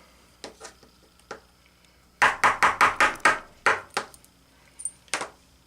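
A fast run of about eight sharp metal knocks in under two seconds, with a few lone clicks before and after, as the rear ball bearing is worked off the crankshaft of a Traxxas TRX 2.5 nitro engine.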